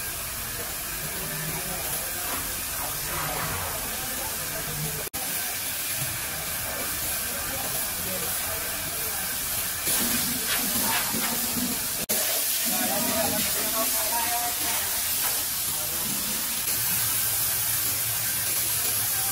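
Compressed-air spray gun hissing steadily as it sprays glaze onto a ceramic toilet body, with two very brief breaks in the sound.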